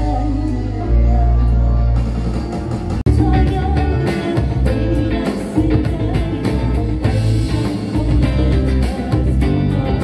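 Live band music: a woman singing over electric guitar. About three seconds in, the sound cuts abruptly to another passage, with strummed electric guitar and a dense, steady rhythm.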